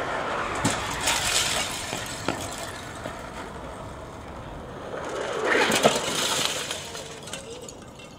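A pane of glass shatters as a skateboarder rides into it, about a second in. A second, louder crash of breaking glass comes about six seconds in.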